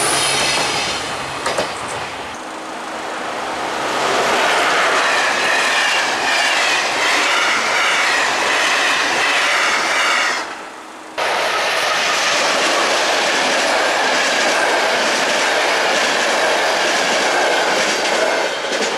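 A train passing close by, its wheels clattering over the rail joints with a high wheel squeal. The sound drops away briefly about ten and a half seconds in, then comes back suddenly at full level.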